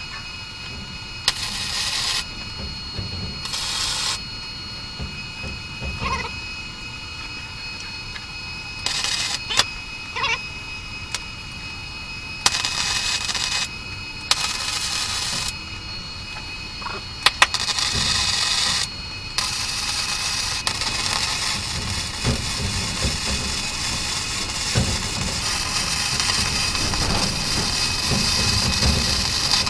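Flux-core MIG welder arcing: several short bursts of hiss, each about a second long and cut off sharply, then welding almost without a break through the last ten seconds.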